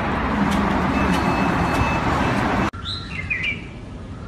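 Loud steady rushing outdoor noise with faint taps less than a second apart, cut off abruptly about three seconds in; a quieter background follows, where a bird chirps briefly.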